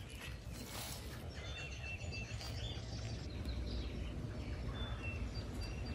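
Wild birds chirping and calling in short, scattered high notes, over a low steady rumble.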